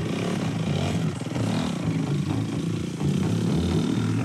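Dirt bike engine running and revving as the bike is pushed off, its pitch wavering, dipping briefly about a second in and getting louder about three seconds in.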